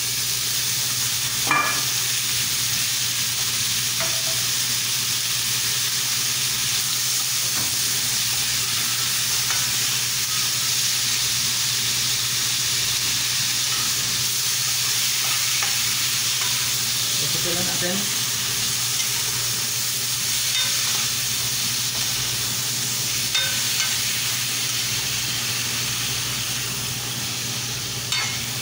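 Chicken gizzards sizzling in hot oil in a frying pan with onions and garlic, stirred with a spatula that scrapes and clicks against the pan now and then. A steady low hum runs underneath.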